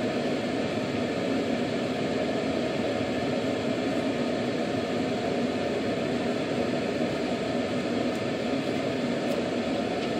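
Steady hum and hiss of room ventilation, even and unchanging.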